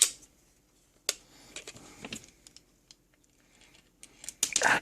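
Small sharp plastic clicks and taps from handling a multimeter while fitting batteries into its battery compartment, with a quicker, louder run of clicks and fumbling near the end.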